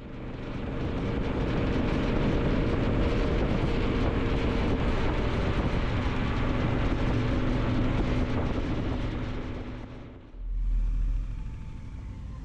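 A vehicle engine running steadily under way, mixed with heavy road and wind noise, fading in at the start. About ten seconds in it cuts to a different, quieter sound that opens with a short low rumble.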